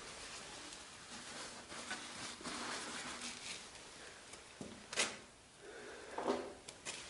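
Paper towel rustling as it is handled and tucked under the motorcycle engine, with a sharp tap about five seconds in and a short dull knock just after.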